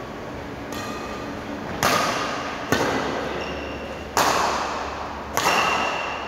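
Badminton rackets striking a shuttlecock back and forth in a doubles rally: five sharp hits about a second apart, each ringing out into the hall's echo.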